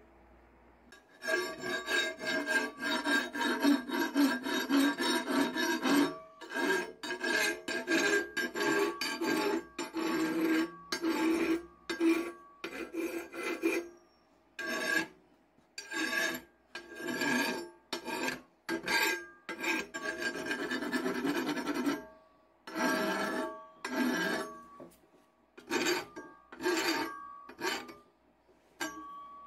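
Hand file rasping along the edge of a steel billhook blade made from truck leaf spring and clamped in a bench vise, the blade ringing under the strokes. The strokes start about a second in, come in a quick run at first, then go on as separate strokes about one a second with short pauses.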